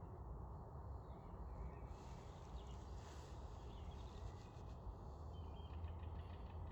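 Faint outdoor ambience: a steady low rumble with a few short, distant bird calls, and a soft hiss about two to three seconds in.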